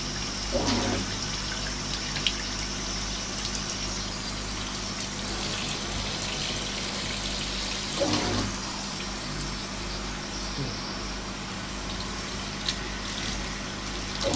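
Handheld shower head spraying water onto a dog's coat in a bathtub, a steady hiss of running and splashing water, briefly louder about a second in and again about eight seconds in.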